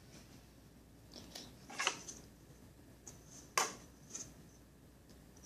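A strip of duct tape being handled, giving short crackling rips as its sticky side pulls away: a few about two seconds in and again near four seconds.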